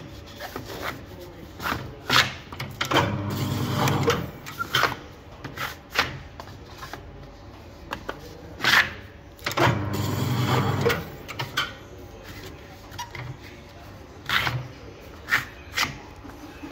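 Core cutter running twice, each time for about a second and a half, as it cuts a cardboard label core. Between the runs come sharp knocks and clatter of cardboard cores being handled and tossed.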